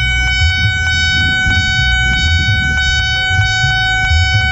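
Nippon Signal electronic level-crossing alarm ringing a steady, rapidly repeated bell tone as the crossing barrier lowers, warning of an approaching train. A continuous low rumble runs underneath.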